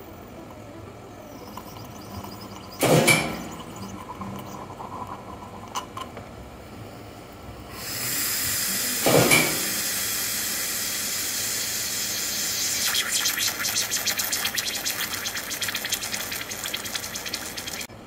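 Odyssey Argos lever espresso machine: two loud knocks about three and nine seconds in, then from about eight seconds a steady hiss and rush of hot water through the machine. The hiss grows rougher and crackly near the end and cuts off suddenly.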